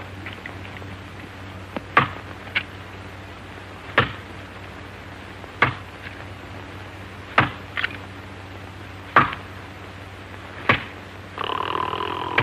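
Steel axe chopping into a tree trunk: seven sharp, ringing chops, about one every two seconds. Near the end a short pitched sound lasts about a second, all over a steady low hum.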